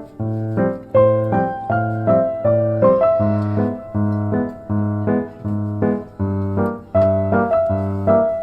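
Background music: a piano playing a gentle, evenly paced tune over a repeating bass note, about two notes a second.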